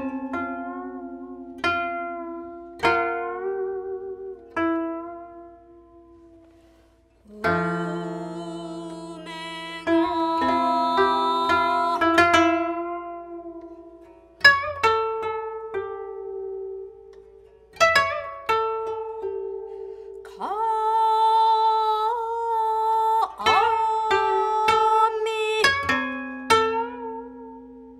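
Solo koto: single plucked notes that ring and die away, spaced a second or two apart, then denser plucked passages from about a quarter of the way in. Long sustained tones from the player's singing voice join the koto in those denser stretches.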